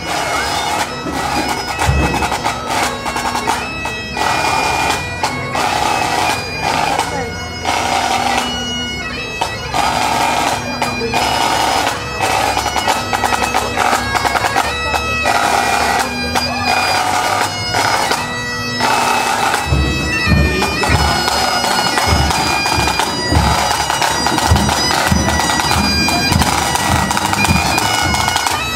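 Pipe band playing: bagpipes sound a tune over their steady drone, and regular drum beats join in about two-thirds of the way through.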